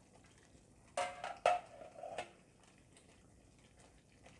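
Metal cookware clanking twice, about half a second apart, about a second in, with a brief ringing tone after. Then faint bubbling of thick simmering tomato gravy in the open kadai.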